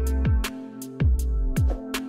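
Background electronic music with a steady beat of deep bass hits that drop in pitch, sharp percussion strikes and held synth notes.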